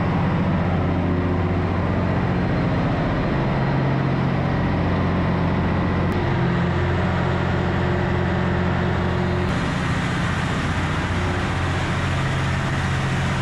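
Engine-room machinery of a commercial fishing boat running with a loud, steady drone and low hum.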